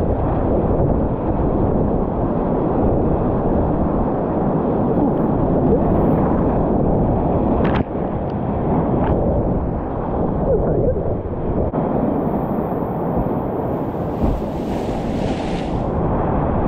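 Whitewater rapids: a loud, steady rush of river water. A couple of sharp knocks come about eight and nine seconds in, and a short hiss about fifteen seconds in.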